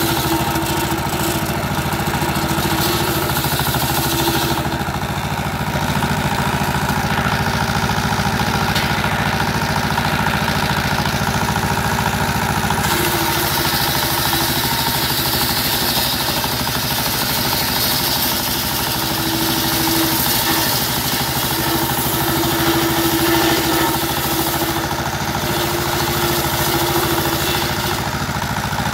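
Small stationary single-cylinder diesel engine running steadily under load, driving a bench circular saw that rips a sonokeling (Indonesian rosewood) plank; the hiss of the blade cutting the wood grows and fades as the plank is fed through.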